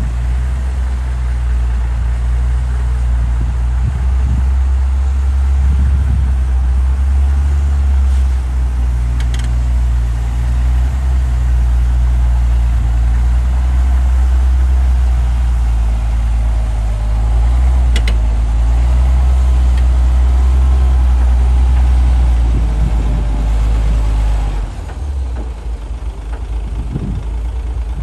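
Heavy diesel engine of earthmoving machinery running with a steady deep drone, dropping to a lower level about three-quarters of the way through.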